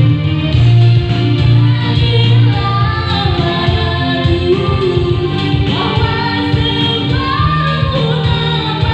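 A Yamaha electronic keyboard plays a steady, bass-heavy accompaniment. A woman's voice joins a few seconds in, singing into a microphone over it.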